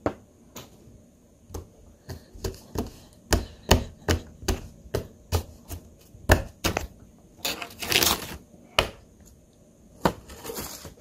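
Irregular knocks and taps on a wooden tabletop, some of them hard, with a short scraping rustle about eight seconds in.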